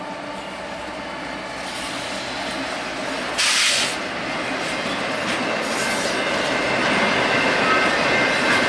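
Freight train drawing closer, growing steadily louder, with its steel wheels squealing against the rails. A short, sharp hiss cuts in about three and a half seconds in.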